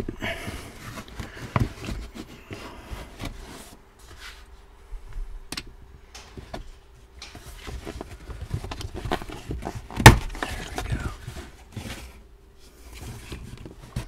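Plastic interior trim panels of a Tesla Model Y being pried and worked loose: scattered clicks, rattles and handling noise, with one sharp loud knock about ten seconds in.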